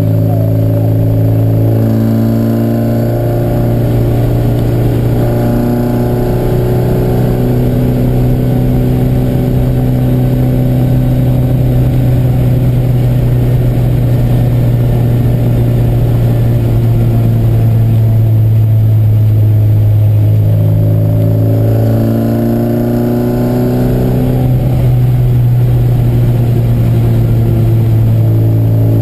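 Classic Mini's race-tuned A-series four-cylinder engine heard from inside the cabin, pulling steadily on the road. Its pitch rises and falls about three-quarters of the way through.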